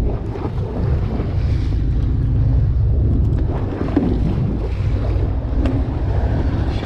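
Wind rumbling on the microphone over the wash of waves around a boat at sea, with a few faint clicks.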